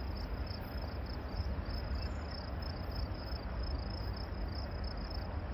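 Insects chirping steadily, a high, evenly repeating pulse several times a second, over a low steady rumble.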